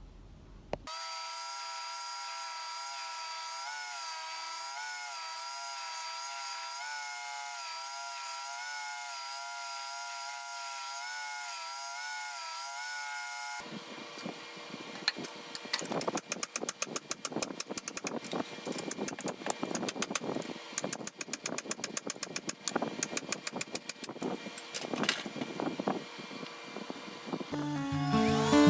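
Power grinder running with a steady, slightly wavering whine for about the first half. From about halfway the sound turns rough and irregular with many short clicks, as steel is ground against it: the khopesh's tang being ground flat to remove scale marks.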